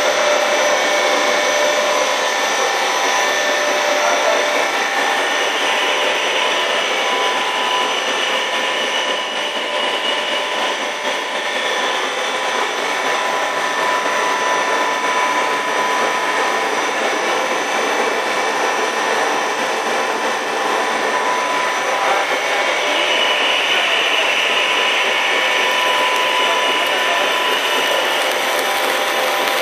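Snack-stick extruder and production-line machinery running: a steady mechanical drone with several constant whining tones from the electric motors and inverter drives.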